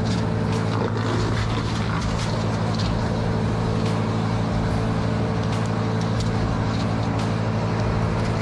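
An engine running at a steady speed, with scattered sharp clicks and cracks over it.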